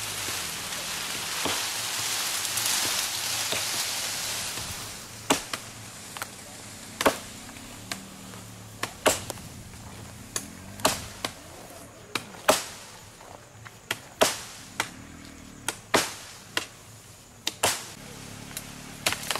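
Leafy branches rustle and scrape as they are dragged through vegetation for about five seconds. Then comes a run of about twenty sharp chopping strikes, irregular, one or two a second, as wood is hacked with a blade.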